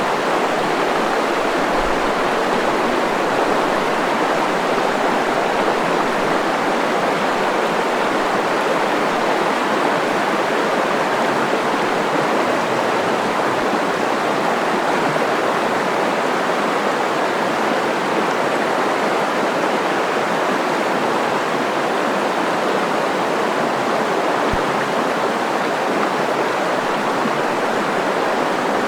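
River water rushing over rocks: a steady, loud, even rush of flowing rapids.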